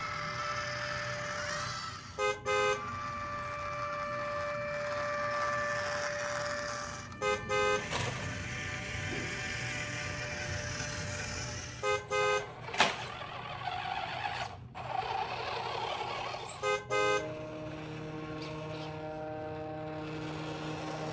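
Short double horn toots that repeat about every five seconds over a steady engine-like drone, with one sharp click near the middle.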